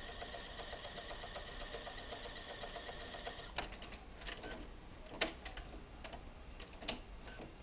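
HP Photosmart D7260 inkjet printer's internal mechanism running with a steady whine and fast ticking for the first three and a half seconds, then a few separate sharp clicks.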